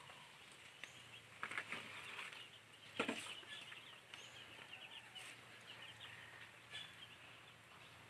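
Faint outdoor background with scattered bird chirps. A few soft knocks and rustles stand out, the loudest about three seconds in.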